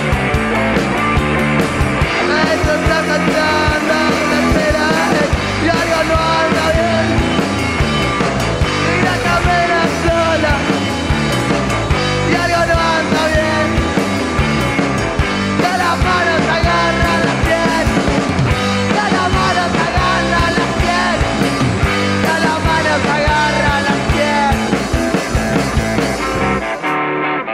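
Rock song with electric guitar and a steady drum beat, with a gliding lead melody over it.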